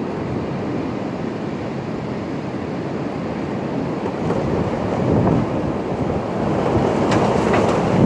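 Strong, gusty wind rushing through bare trees, a steady rush like a freight train that swells about halfway through. It is loudest near the end, with a few short crackles and some wind buffeting the microphone.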